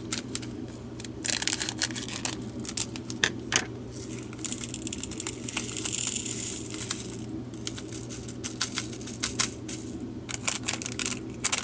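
Small plastic packets of diamond painting drills crinkling as they are handled, with the tiny resin drills clicking and pattering as they are poured into a plastic storage container. A denser rush of pouring comes about halfway through.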